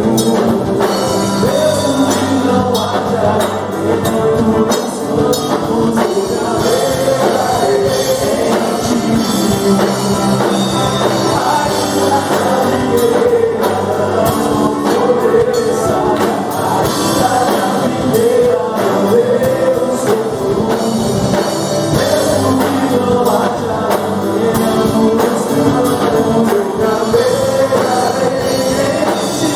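Live worship band with keyboard, electric guitar, drum kit and bass guitar playing a congregational worship song, with voices singing the melody over a steady drum beat.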